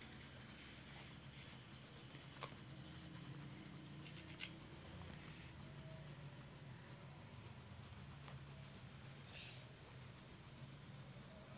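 Faint scratching of a colored pencil shading back and forth on a coloring-book page, with a few light ticks of the pencil against the paper.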